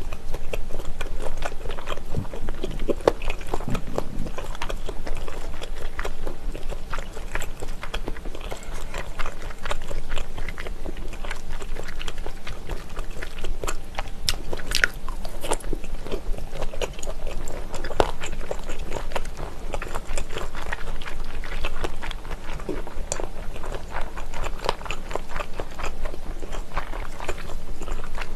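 Close-miked chewing and biting of slices of spicy pressed boneless chicken-feet loaf, with many small crunchy clicks and mouth sounds throughout.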